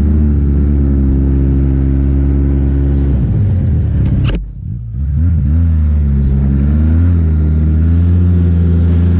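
Arctic Cat snowmobile engine running under steady throttle, with wind rush. The pitch sags about three seconds in, a click and a brief drop in loudness follow, and then the engine pulls back up to a steady pitch.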